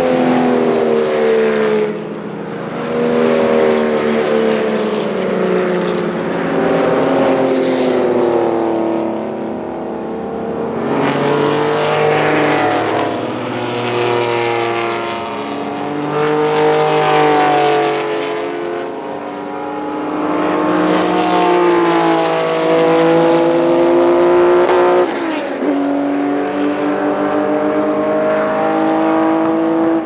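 Porsche 911-derived racing cars, turbocharged 935s among them, passing one after another at speed. Their flat-six engines rise and fall in pitch through the gears in repeated swells as each car goes by.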